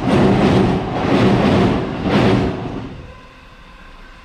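A train passing, loud at first and then fading away about three seconds in.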